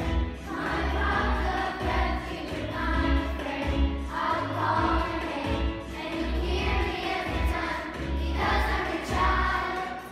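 A chorus of voices singing a song over instrumental accompaniment with a strong bass.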